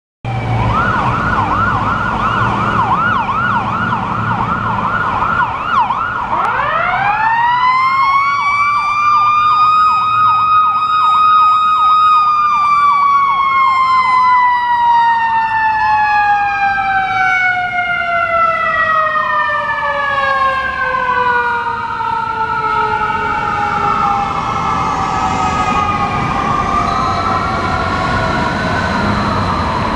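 Ambulance sirens on an emergency run: a Whelen electronic siren yelps rapidly, then changes to a slower rising-and-falling wail. About six seconds in, a Federal Signal e-Q2B mechanical siren spins up to a high howl, holds it, then slowly winds down under the electronic wail.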